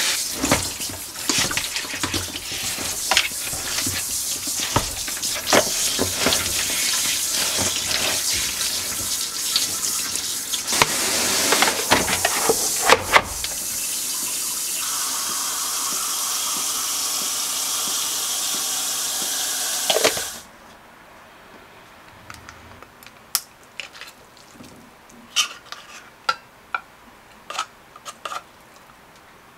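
Kitchen tap running into a stainless steel sink while pork back ribs are rinsed by hand in a colander, with splashing and knocks, then running steadily as it fills a bowl of water over the ribs to soak out the blood. The water shuts off suddenly about two-thirds of the way through, leaving scattered light clicks and taps.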